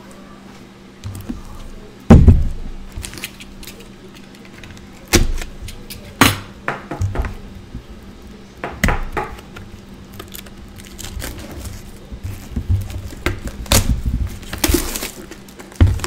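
A cardboard trading-card box (Panini National Treasures football) and card holders being handled on a tabletop: a series of irregular knocks and thumps, the loudest about two seconds in, with lighter clicks and rustling between.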